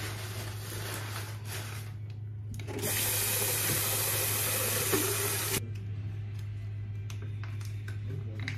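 Water running from a tap for about three seconds, starting and stopping suddenly, over a steady low hum.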